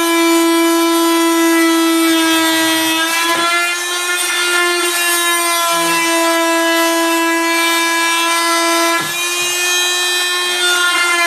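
Small angle grinder running at a steady high whine as its disc cuts through the wall of a plastic bucket. The pitch sags briefly twice, about three seconds in and again near nine seconds, as the disc is pushed into the cut.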